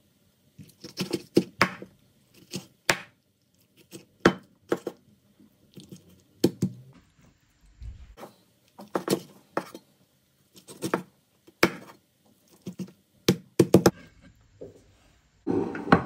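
Large kitchen knife chopping a whole poached chicken on a wooden cutting board: irregular sharp knocks of the blade hitting the board, some in quick pairs and clusters, with short pauses between.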